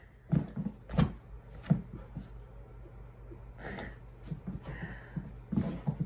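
Golden retriever puppy jumping and pawing at the side of a bed: a series of soft, dull thumps from its paws, several in the first two seconds and more near the end, with two short breathy huffs in the middle.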